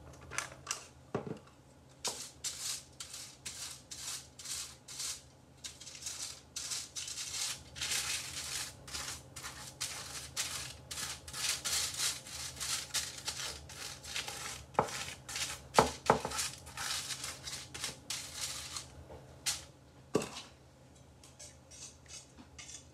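A pastry brush scraping back and forth over crinkled aluminium foil lining a baking pan as the foil is greased with butter: rapid scratchy, crinkling strokes, with a few sharper knocks midway and near the end.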